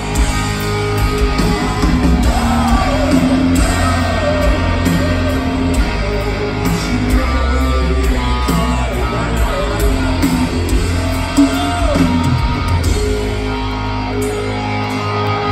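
Rock band playing live: distorted electric guitars, bass and drums, with a lead voice singing over them and a heavy, boomy low end.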